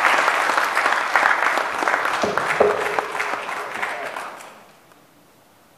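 Congregation applauding, the clapping thinning out and dying away about four and a half seconds in.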